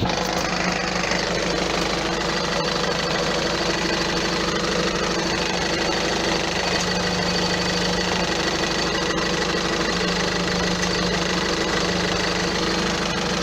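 Peugeot 407 1.6 HDi 110 four-cylinder diesel engine running steadily at idle with a rattle, the noise the owner hears after accelerating and puts down to the flywheel, which is due to be replaced.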